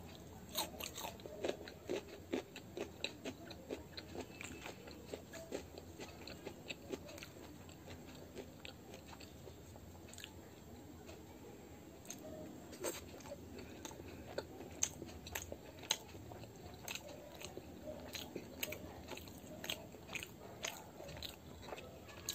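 Close-up mouth sounds of eating: chewing and biting food, stuffed paratha among it, with many short wet clicks and smacks. They thin out for a while in the middle and come thick again from about twelve seconds in.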